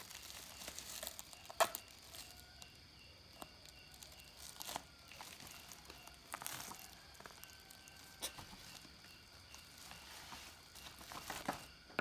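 Black plastic parcel wrapping crinkling and rustling as it is cut open with scissors and handled, in short scattered crackles, the loudest about one and a half seconds in.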